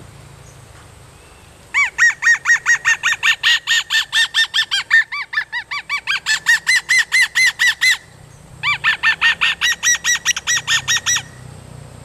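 Small reed whistle from a child's toy fan, used as a game call: it is sucked through cupped hands to imitate the keke, a small hornbill. It gives a fast run of short squeaky notes, about five a second, each rising and falling in pitch, in two runs with a brief break about eight seconds in.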